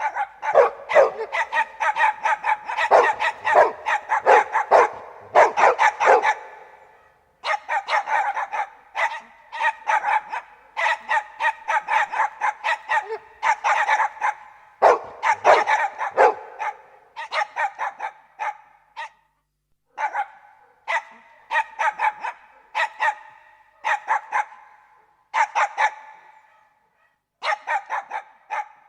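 Several dogs barking together in fast, overlapping volleys, several barks a second, with brief pauses of about a second three times.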